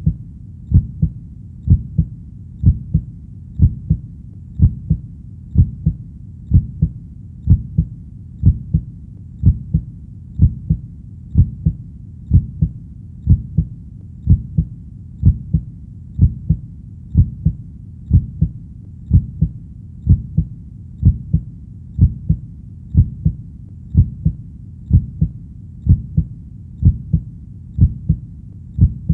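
Heartbeat sound: a steady lub-dub, each beat a pair of deep thumps, about one beat a second, over a low continuous rumble.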